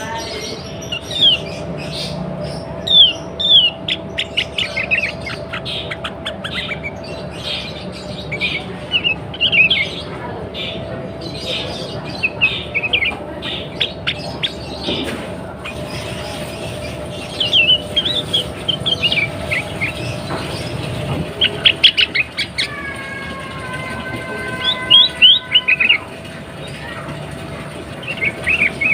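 Sooty-headed bulbul calling in bursts of short, sharp, falling chirps, offered as the call of a female in breeding condition to lure males into song. A steady hum runs underneath, and about three-quarters of the way through a long level tone sounds for a few seconds.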